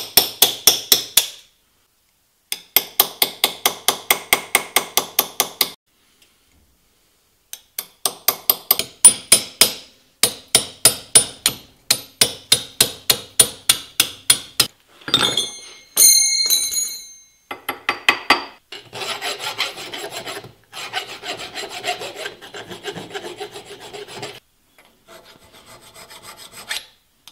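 A small chisel struck with a hammer against a bronze casting, in runs of quick, sharp metallic taps that cut away casting fins and flashing. About halfway through comes a brief ringing metal clink, then a file rasps back and forth over the bronze to smooth it.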